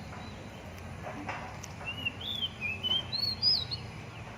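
Oriental magpie-robin (kacer) singing a short phrase of quick whistled notes, each bending up and down, the phrase climbing higher about halfway through and ending shortly before the end, over a steady low rumble.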